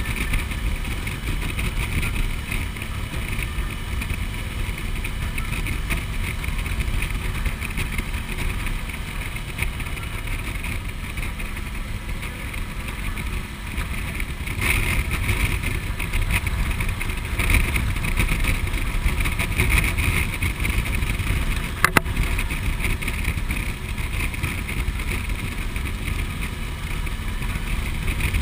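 Suzuki V-Strom motorcycle cruising at road speed, its V-twin engine running steadily under a heavy rush of wind and road noise on the bike-mounted camera. The sound swells slightly twice about halfway through, and there is one sharp click a few seconds before the end.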